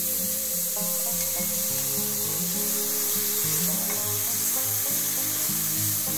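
Sliced red onion sizzling in a hot frying pan, with an even hiss. A light instrumental tune plays underneath.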